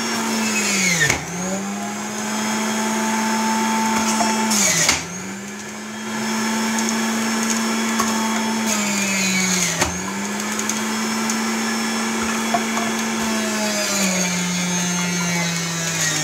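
Electric centrifugal juicer's motor running. Its hum sags in pitch and recovers three times as apple pieces are pushed into the feed chute, then runs lower under a steadier load near the end.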